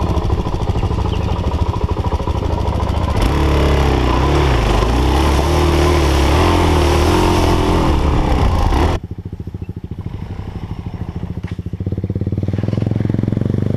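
Single-cylinder dual-sport motorcycle engine pulling through a muddy puddle, with water splashing from about three seconds in. About nine seconds in the throttle shuts and the engine drops to a quieter, pulsing idle. Near the end a second bike's engine grows louder as it rides into the water.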